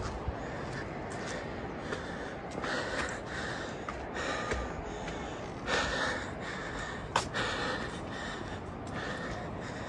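A person breathing hard while walking up outdoor steps, with a few heavy breaths about 3 and 6 seconds in and scattered footstep taps, over a steady rush of wind on the microphone.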